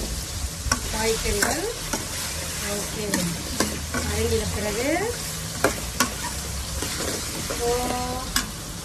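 Steel ladle stirring chopped vegetables frying in oil in an aluminium kadai: a steady sizzle with scraping, and about half a dozen sharp clinks of the ladle against the pan.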